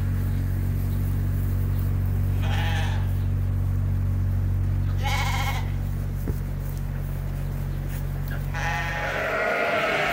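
Lambs bleating: two single bleats a few seconds apart, then several lambs bleating together near the end. Under them runs a steady low machine hum that stops shortly before the end.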